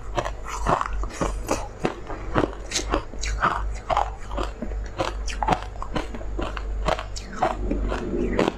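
Close-miked crunching and biting of frozen purple ice as it is chewed: a rapid, irregular run of sharp, crisp crunches, several a second.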